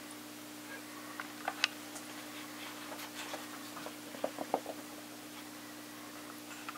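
Cats' paws and claws tapping and scuffing on carpet as they play: scattered light clicks, with a quick cluster about four seconds in, over a steady low hum.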